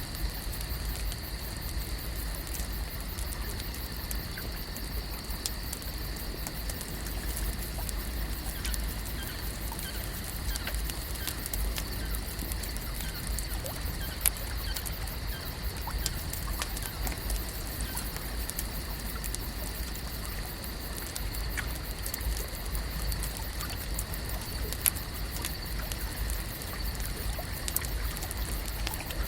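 Lake ambience: a steady low rumble under a noisy bed of light patter and many small scattered clicks, with two sharper clicks about halfway and again near the end. Two faint, steady high tones hold throughout.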